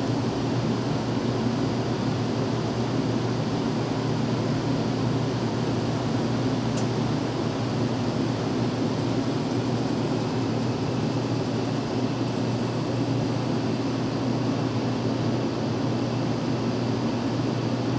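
Home furnace running: a steady rush of air from the blower over a constant low hum.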